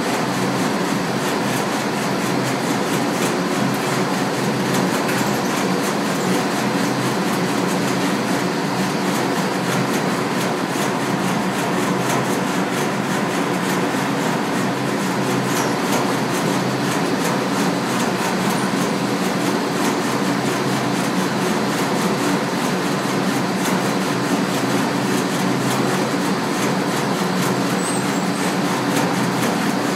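Rotating wooden dyeing drum running, garments and dye liquor tumbling inside: a steady mechanical rumble with constant fine clatter.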